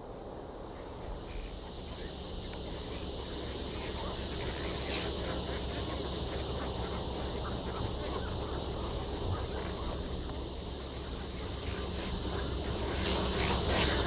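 Dusk marsh ambience: a steady high-pitched chorus of calling animals with many short scattered calls over it, growing louder near the end.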